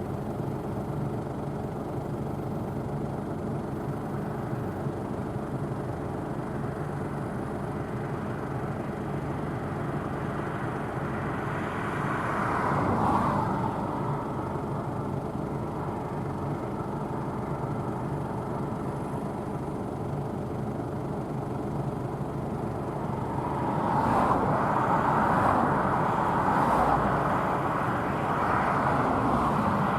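Claas Tucano 570 combine harvester running under load while harvesting barley: a steady engine drone mixed with the rush of the threshing machinery. It grows louder briefly around the middle and again for several seconds near the end.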